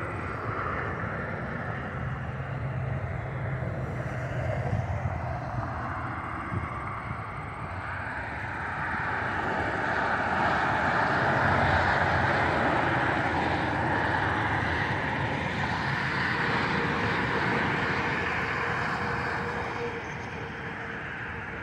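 Large jet airliner flying low overhead, its engine noise swelling to a peak about halfway through and then slowly fading, with a steady whine under it in the second half.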